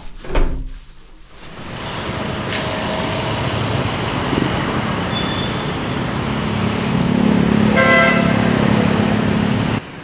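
Street traffic noise from passing vehicles, growing louder over several seconds, with a short vehicle horn toot about eight seconds in.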